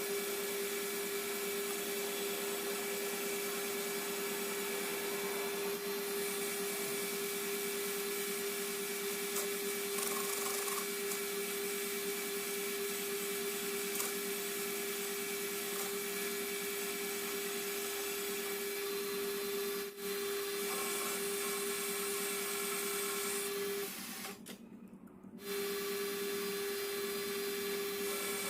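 Metal lathe running with a steady motor whine and machining noise. It drops out for about a second and a half near the end, then resumes.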